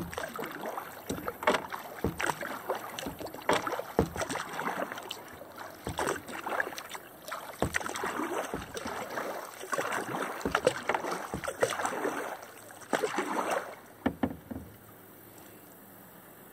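Kayak paddle strokes dipping and splashing in calm water, with drips and light knocks. The strokes stop about two seconds before the end.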